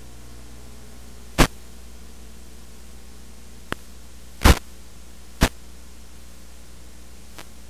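Steady static hiss with a low hum, as from an analog FPV video receiver's audio channel, broken by five short sharp crackles, the loudest about halfway through.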